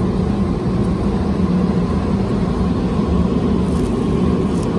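Steady low roar of a paint spray booth's air system, with a couple of faint ticks near the end as foam masking tape is peeled off the panel.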